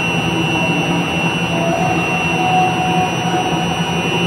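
Steady industrial machinery drone with a constant high-pitched whine and a low hum, unchanging throughout.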